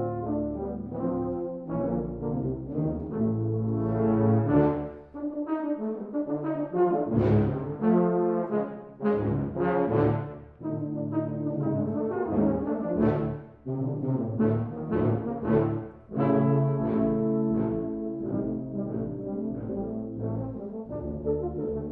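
A tuba/euphonium quartet, two euphoniums and two tubas, playing a rhythmic passage: low sustained notes underneath repeated accented notes above.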